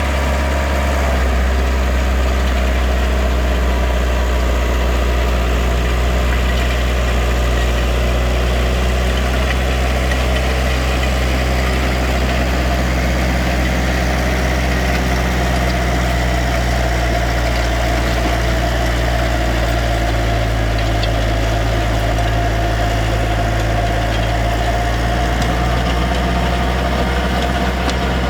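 Farm machine's engine running at a steady speed, with a low, even drone.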